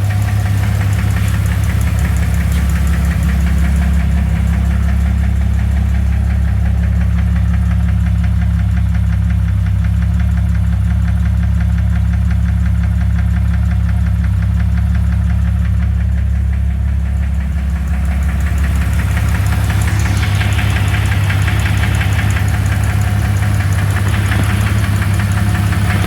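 2001 Jeep Cherokee 4.0-litre inline-six engine running steadily with a rapid, regular knock or slap. The owner can't place its cause and has ruled out the flexplate, which is new. A brighter hiss joins about two-thirds of the way through.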